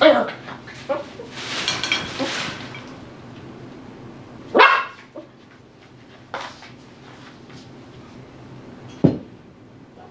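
Tibetan Terrier puppy giving a few short barks while playing, the loudest about four and a half seconds in, with rustling around two seconds in and a sharp knock near the end.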